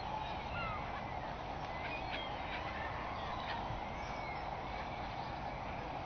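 A flock of gulls on the water giving short, scattered calls, with splashing and wing flapping, over a steady background rush.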